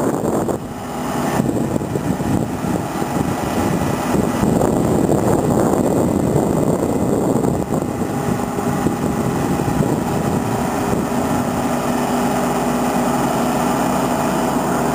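The motor-generator set of a Škoda 14Tr trolleybus humming steadily while the trolleybus stands still. Its steady tones come through more clearly about halfway through, once a louder rumbling noise dies down.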